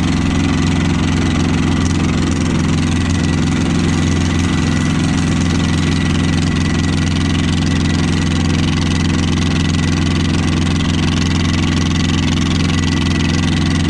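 Small diesel engine swapped into a Sears Suburban 12 hydrostatic garden tractor, running steadily at raised throttle while the tractor drives.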